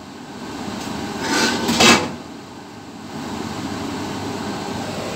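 A brief louder noise that swells and stops about two seconds in, then a steady mechanical hum.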